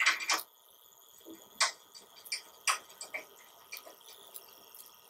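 Irregular light metallic clicks and taps as Phillips head bolts with star and flat washers are threaded by hand into the water cooler's mounting holes on the trolley frame, with a quick cluster of clicks at the start, then single ticks.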